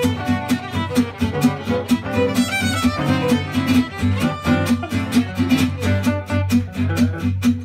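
Gypsy jazz trio: a violin plays a lead melody over two acoustic guitars strumming a steady, even beat.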